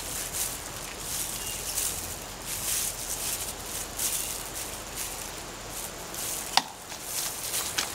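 Hands digging and sifting through loose soil in a potato container, an uneven gritty rustling that swells and fades, with a sharp click about six and a half seconds in.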